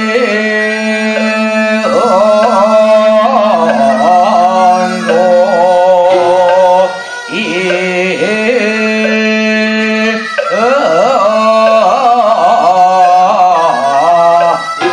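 Korean Buddhist ritual music: an ornamented melody sliding up and down in pitch over a steady low drone, pausing briefly about seven seconds in.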